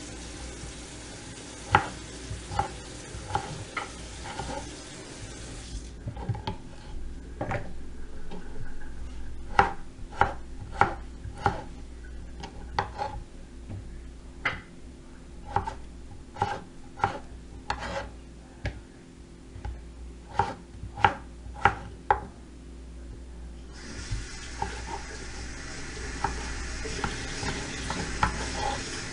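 Kitchen knife slicing through a raw potato and knocking on a wooden cutting board, irregular knocks about one or two a second.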